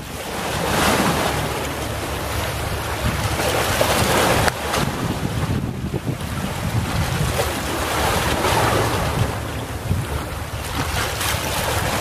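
Calm sea waves washing onto the shore and drawing back, swelling and easing every few seconds, with a low rumble of wind on the microphone.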